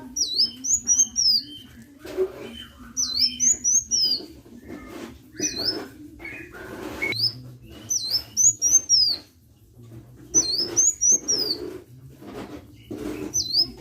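A sunbird, called 'kolibri' by Indonesian bird-keepers, singing in quick runs of three to five sharp, high chirps that dip and rise in pitch. The runs repeat every second or two, with soft clicks and rustling between them.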